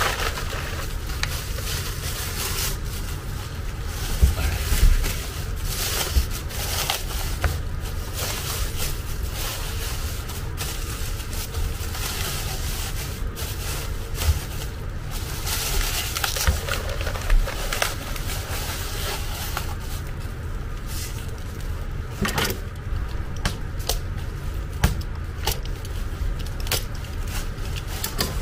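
Bubble wrap and plastic bags rustling and crinkling as they are handled and pulled back, with irregular sharp crackles and scrapes over a steady low hum.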